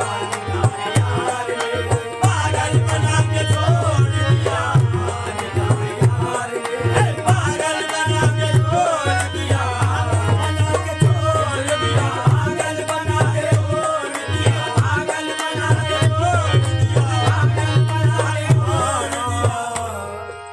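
Qawwali music: tabla playing a steady rhythm under a melody that slides and bends between notes. The music drops in level near the end.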